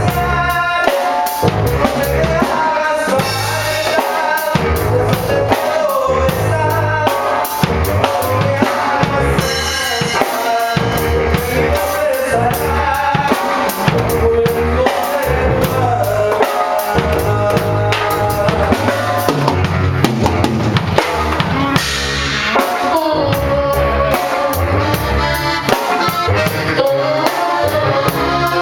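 Norteño band playing live without singing, a drum kit keeping a steady beat with bass drum and snare under melodic instrument lines.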